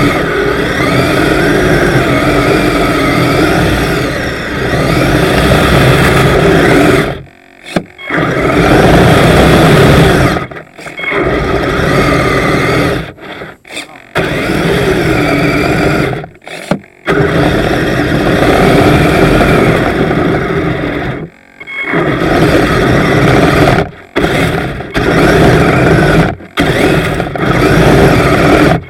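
Electric drive motors of an upgraded Kyosho Blizzard RC snowcat whining as it drives on metal tracks, the pitch rising and falling with the throttle. It stops dead about six times and pulls away again.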